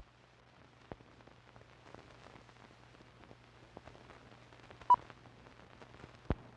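Old-film countdown leader sound effect: scattered crackle and clicks over a low steady hum, with a short high beep about five seconds in and a sharp pop near the end.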